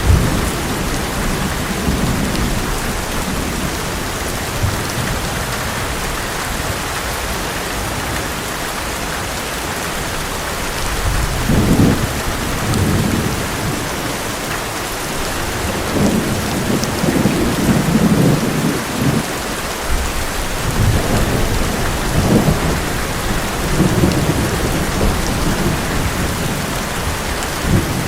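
Heavy rain drumming steadily on an old metal roof, with thunder rumbling in low rolling swells about eleven seconds in and again through the second half.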